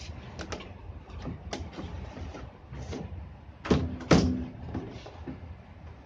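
Hard plastic bottom cover of a washing machine being handled and fitted onto the base: a run of plastic clacks and scrapes, with two loud knocks close together about halfway through.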